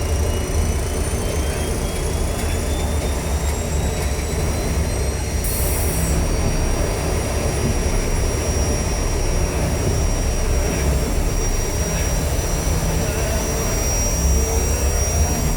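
Steady heavy machinery rumble from dubbed industrial sound effects, with thin high whines gliding slowly upward in the first half and a steady high whistle above.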